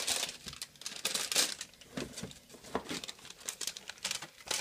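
Plastic packaging crinkling and rustling in irregular bursts as small bags of craft supplies are picked up and handled.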